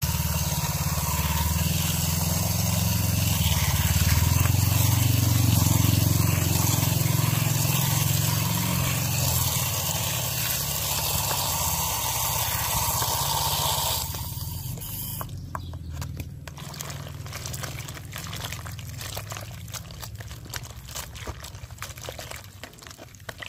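A stream of water pours steadily onto mushrooms in a plastic basin, then stops abruptly about 14 seconds in. After that come quieter wet rustles and clicks as a hand stirs and rinses the mushrooms in the water.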